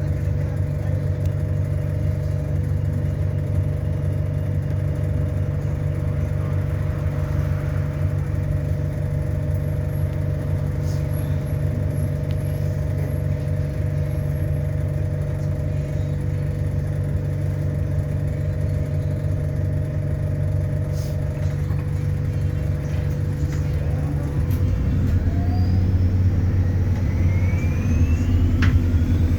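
ADL Enviro400 Hybrid bus's drivetrain heard from on board: a steady low drone with a constant hum, then about five seconds before the end it grows louder and rising whines climb in pitch as the bus accelerates.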